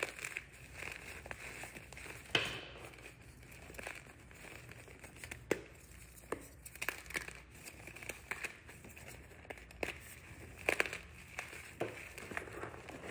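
Hands crushing and squeezing chunks of reformed gym chalk over loose chalk powder: irregular crunches and crackles with soft powdery crumbling between them, the sharpest crunches about two seconds in and again about eleven seconds in.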